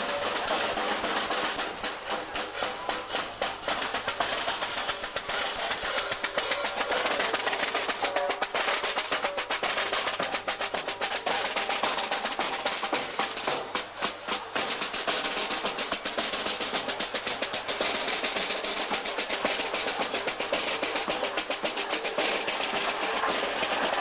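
Marching band drums, with snare drums, playing fast rolls and beats as the band marches.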